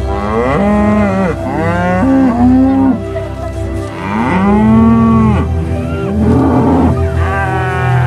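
Cattle mooing, about five long moos one after another, each rising and then falling away in pitch.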